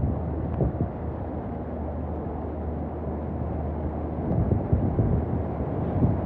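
Hurricane Milton's wind buffeting the microphone as a low, gusting rumble that grows stronger in the last couple of seconds.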